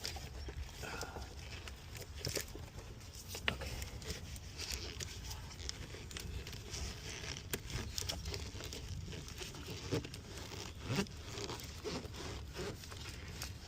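Scattered light clicks, rustles and scrapes of hoses and plastic parts being handled and pushed back into place in a car engine bay, over a steady low rumble.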